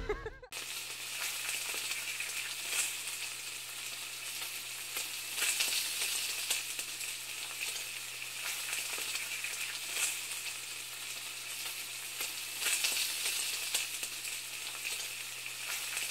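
Food sizzling on a hot surface: a steady hiss with scattered small pops and crackles, over a faint low hum.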